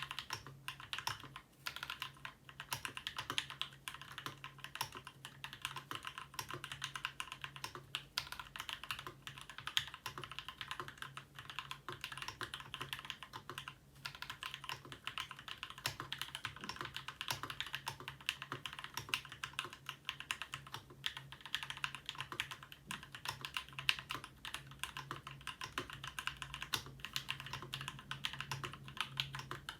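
Continuous fast typing on a Ramaworks M60-A seq2 60% mechanical keyboard with linear Gateron Black Ink switches. The switches are lubed with Krytox 205g0 and filmed, with screw-in stabilisers and an internal dampener, giving a dense, even patter of keystrokes. A faint steady low hum lies underneath.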